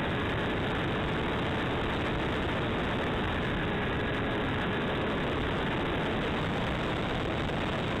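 Steady rush of wind and airflow over the microphone of a camera riding on a Hawk Sky electric RC plane in flight, with a faint steady whine from its motor under it.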